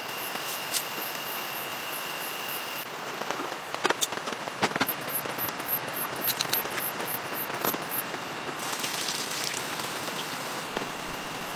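Steady heavy rain, with a run of sharp pops and crackles in the middle. Near the end comes a brighter sizzle of hot oil bubbling around food deep-frying in a pan.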